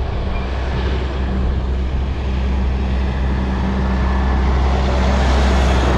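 Vehicle engine running with a steady low hum, heard from inside the cabin, with road or wind noise that swells somewhat near the end.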